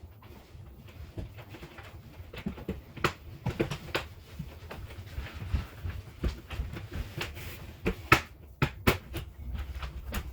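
Scattered sharp clicks and knocks at irregular intervals over a low rumble, the loudest about eight seconds in.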